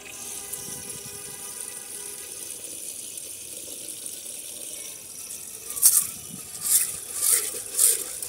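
Tap water pouring in a thin stream into a glass fishbowl holding pebbles, a steady splashing. From about six seconds in the bowl is rocked by hand under the stream, and the water sloshes and splashes in loud pulses about every half second.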